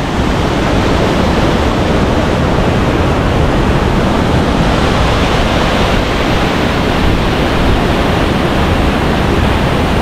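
Swollen mountain stream rushing loudly and steadily over rocks, running high and fast after rain.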